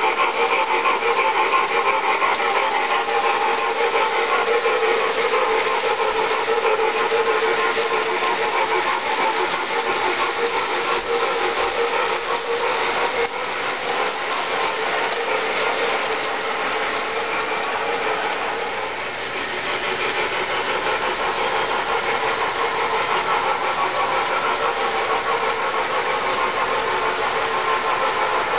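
O-scale three-rail model train running past: a steady whir and rattle of the locomotive's electric motor and gearing and of metal wheels rolling on metal rail, dipping slightly in loudness partway through.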